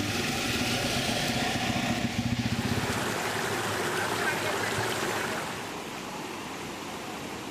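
A motor vehicle's engine running for the first two to three seconds, then giving way to a steady noisy hiss that becomes quieter about five seconds in.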